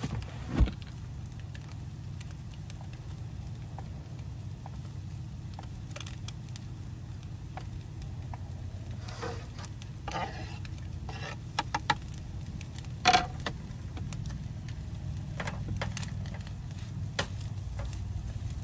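Scattered knocks and scrapes of a kitchen knife on a plastic cutting board as cut Parmesan is scraped off into a frying pan, followed by a silicone spatula stirring the eggs, over a steady low hum. The loudest knocks come just after the start and about twelve to thirteen seconds in.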